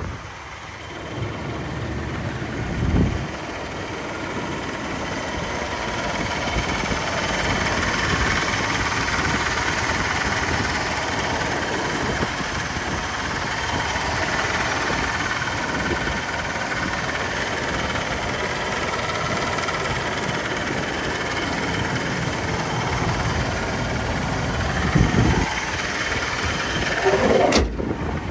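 Chevrolet 454 big-block V8 idling steadily, with a few bumps near the end.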